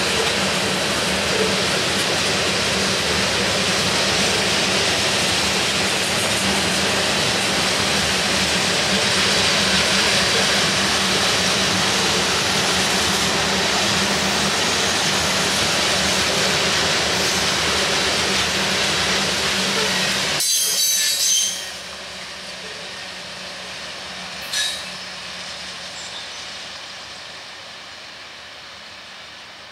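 Loaded railroad tank cars of a freight train rolling past close by: a loud, steady rumble and hiss of steel wheels on rail. About two-thirds through, the last car goes by and the sound drops suddenly to the fainter, fading rumble of the train moving away, with one brief high-pitched squeak.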